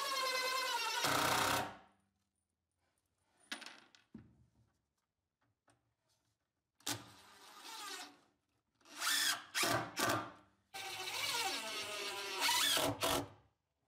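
Power drill driving screws in a series of runs. The first run's motor pitch climbs as it goes, and four or five shorter bursts follow with pauses between.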